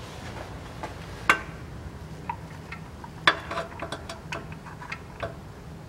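Small scattered clicks and taps of a tool and the plastic Haldex coupling oil filter as it is hooked and pulled out of its housing, with a sharper click about a second in and another about three seconds in, over a low steady hum.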